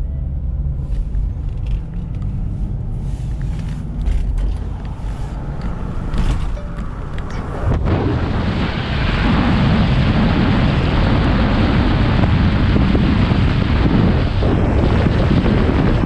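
Car driving on the road, heard from inside: a steady low rumble of engine and road noise. About halfway through, a louder, even rushing noise takes over.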